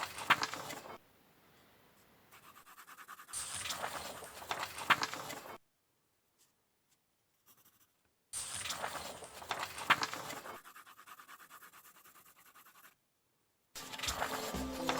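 Drawing tool scratching on paper in quick strokes, in three bursts of about two seconds each with silence between them. Music starts near the end.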